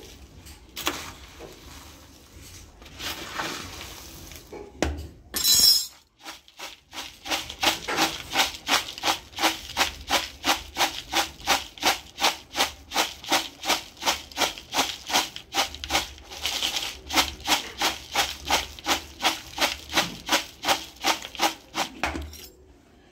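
Dry puffed rice, sev and papdi being mixed in a plastic bowl. For the first few seconds a steel spoon scrapes and stirs, with one short loud rattle. From about six seconds in, the bowl is tossed in a steady rhythm of about three shakes a second, the dry snack mix rattling against the plastic.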